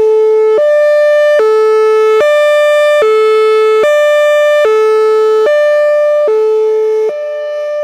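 Whelen Vortex R4 outdoor warning siren sounding its Hi-Lo signal: a loud two-tone wail that switches back and forth between a low and a high steady pitch about every 0.8 seconds. It dips slightly in loudness near the end.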